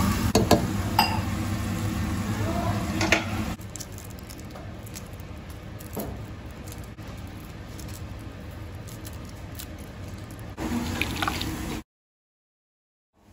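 Onions caramelising in oil in a pot, sizzling and squishing as a slotted plastic spatula stirs them, with sharp clicks of the spatula against the pot. After about three and a half seconds it drops to a quieter stretch with a few faint clicks, and near the end the sound cuts out completely.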